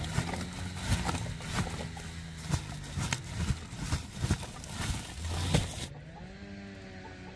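Open fire of dried corn cobs and logs burning, crackling with many sharp pops over a low steady roar. About six seconds in the crackling gives way to a quieter background with a faint wavering tone.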